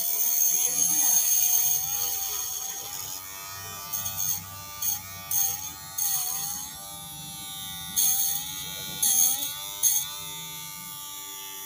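Small Tamiya toy-car DC motor running as a makeshift lathe, a steady electric whine whose pitch dips slightly now and then. A knife blade scrapes against the spinning styrofoam in short scratchy bursts, several of them about four seconds in and again near the end.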